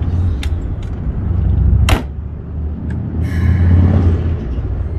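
Keikyu 2100-series electric train standing at the platform: a steady low rumble with a couple of light clicks, a sharp bang about two seconds in, then a hiss of air from about three seconds in.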